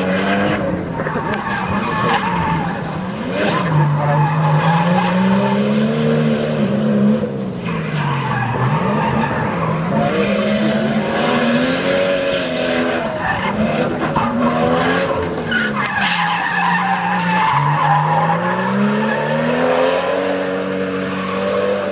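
Drift car's engine revving up and down over and over as it slides sideways, with the rear tyres spinning and skidding on the tarmac.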